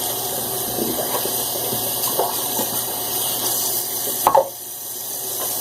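Water running steadily from a tap into a sink, with a short sharp knock a little over four seconds in, after which the flow briefly sounds quieter.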